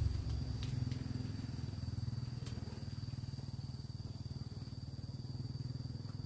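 A small engine running steadily at low revs, with fast, even pulsing, under a steady high insect trill.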